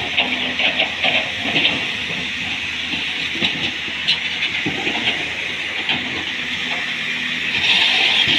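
Tata Hitachi 200 excavator working: its engine running under a steady hiss, with irregular metallic knocks and clanks.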